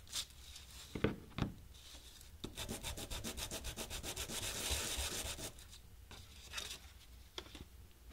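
Small Teflon (PTFE) block rubbed back and forth on a sheet of sandpaper to rough its surface for bonding: quick, rhythmic scraping strokes for about three seconds in the middle. Two light knocks about a second in.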